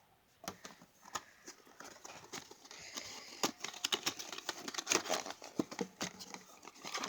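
Handling noise: a dense, irregular run of crinkling rustles and small clicks, as of things being handled or squeezed, building through the middle and cutting off abruptly at the end.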